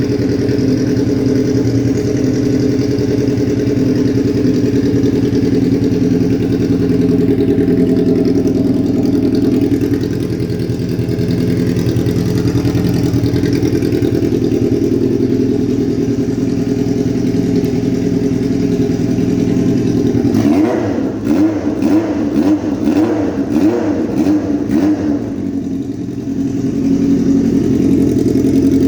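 Honda CBX 750F motorcycle's air-cooled inline-four engine idling steadily. About 20 seconds in, it is blipped through a string of quick revs for about five seconds, then settles back to idle.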